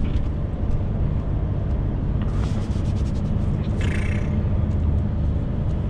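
Steady low rumble of a DAF XF 530 truck's engine and road noise, heard from inside the cab, with some faint rustling and light clicks midway.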